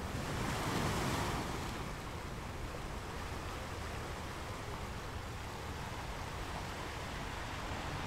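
Ocean waves washing: an even rushing noise that swells about a second in and then holds steady.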